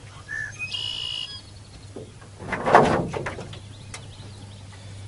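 A bird gives a brief whistled call near the start. About two and a half seconds in comes a loud, crackly burst of under a second: a lively catfish thrashing as it is held and unhooked with pliers in a boat.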